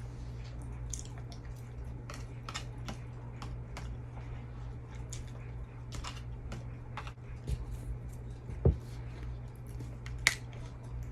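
A person eating hash browns close to the microphone: soft chewing with scattered small clicks and crackles, over a steady low hum. A dull thump comes about three-quarters of the way through and a sharp click near the end.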